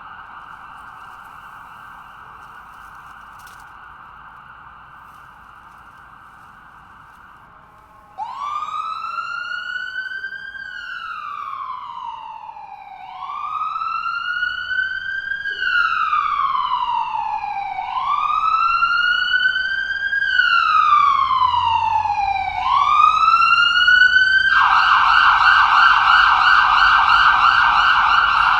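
Ambulance's electronic siren, growing steadily louder. It starts as a faint, fast warble. About eight seconds in it switches to a slow wail that rises and falls about every four to five seconds, and near the end it changes back to a loud, fast yelp.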